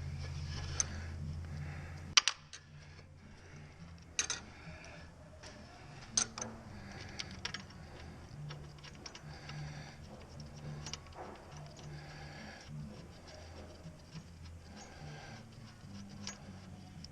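Metallic clinks and taps of bolts and a hand tool while transmission bolts are fitted by hand. There are sharper clinks about two, four and six seconds in, then lighter ticking. A low hum fades after the first two seconds.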